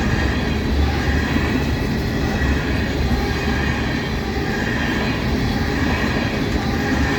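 Empty ethanol tank cars of a freight train rolling past at about track speed, a steady rumble of wheels on rail.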